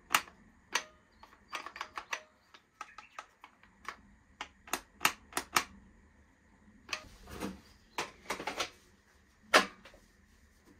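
Irregular sharp plastic clicks and knocks from handling a BLACK+DECKER cordless chainsaw, its safety switch and trigger lever being worked; the motor does not run.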